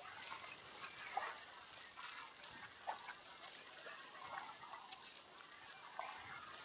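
Kayak paddle strokes splashing in choppy sea water, with irregular splashes about once a second over the hiss and slosh of the sea.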